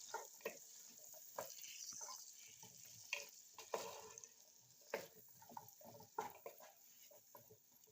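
Sliced onion frying in ghee in a pot, a faint sizzle with irregular scrapes and clicks of a spoon stirring it.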